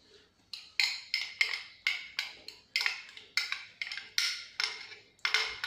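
Repeated light knocks on hollow plastic, about three a second: an upturned plastic condensed-milk container being tapped to drain the thick milk into a blender jug.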